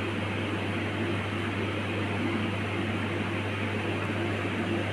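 Steady hum with an even hiss from running machinery such as a ventilation fan, unchanging throughout.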